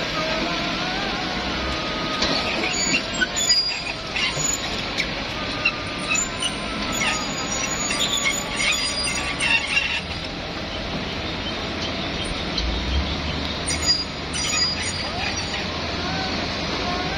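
Kobelco hydraulic excavators working: engines and hydraulics run steadily under a whine, with high metallic squeals and bursts of scraping and clanking as the buckets dig and dump earth, busiest in the first ten seconds and again briefly near the end.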